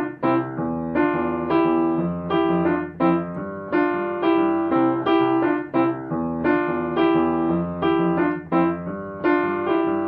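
Upright piano played solo: a steady, even pulse of struck chords, each note ringing and fading before the next.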